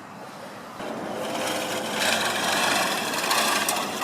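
A mechanical whirring that starts about a second in and grows louder.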